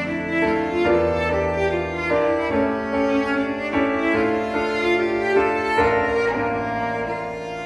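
Background music: strings, with violin and cello, over piano, playing a slow melody.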